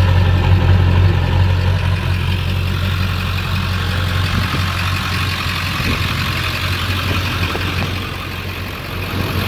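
Ford 7.3-litre Power Stroke turbodiesel V8 idling steadily through a 5-inch exhaust that still has its muffler, a deep even note that softens slightly about eight seconds in.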